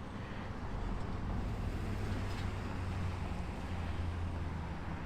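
A steady low engine rumble of vehicles, with light wind on the microphone.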